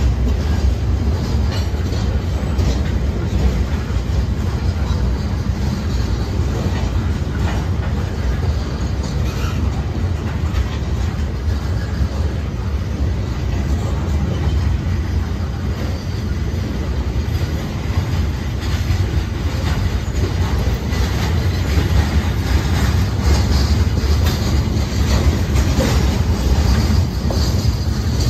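CSX freight train of covered hopper cars rolling past close by: a steady low rumble of steel wheels on rail with a clickety-clack of the wheels over the rail joints.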